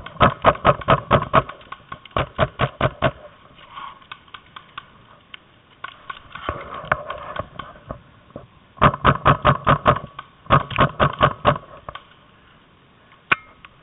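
Paintball markers firing rapid volleys of sharp shots, about six a second, in five bursts of roughly a second each with short pauses between.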